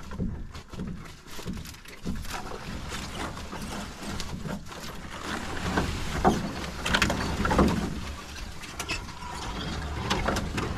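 Footsteps and rustling along a forest portage trail under a canoe carried overhead, with irregular snaps and scrapes of twigs and brush.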